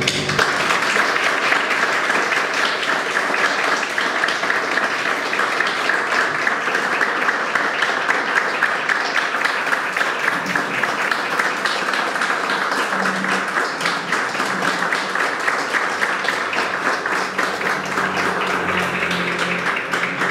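A small audience applauding: a dense, steady patter of many hands clapping, starting as the music stops.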